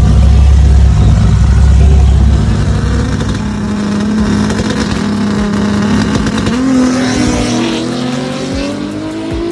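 Drag race car engines at full throttle: a loud, close rumble that fades after two or three seconds as the cars pull away down the track, their engine note climbing steadily in pitch.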